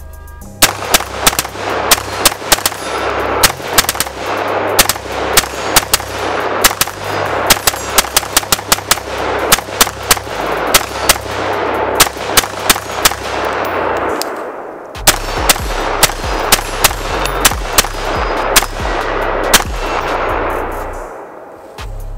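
Custom AR-15-style rifle fired semi-automatically in rapid strings, dozens of sharp shots a fraction of a second apart, with a short lull about two-thirds through before the firing resumes.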